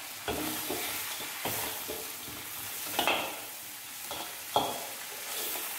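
Crab pieces stir-frying in a stainless-steel wok: a steady sizzle, with a metal spatula scraping and knocking against the wok several times, loudest about three seconds in and again a second and a half later.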